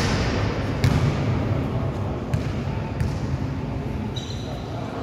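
Indistinct voices in a gymnasium, with a few scattered sharp knocks at the start, about a second in and about three seconds in.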